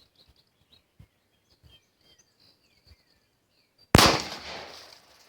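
A single .380 pistol shot about four seconds in, sudden and loud, trailing off over about a second. Faint bird chirps before it.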